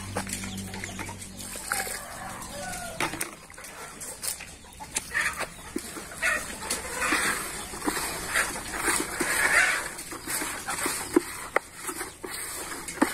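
Domestic chickens clucking, with short calls in the first couple of seconds. From about five seconds in, a hand squishes and stirs damp bran-and-rice feed in a plastic bucket in short, repeated bouts.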